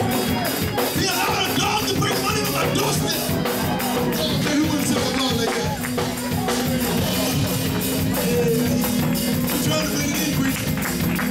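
Gospel praise-break music from a live church band: a fast, driving drum beat and a shaken tambourine under held low chords, with voices singing or shouting along.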